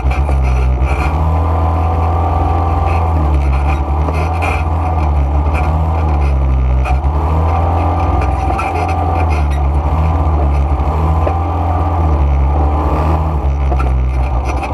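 ATV (quad bike) engine running at riding speed on a dirt trail, a loud low hum whose pitch rises and falls with the throttle.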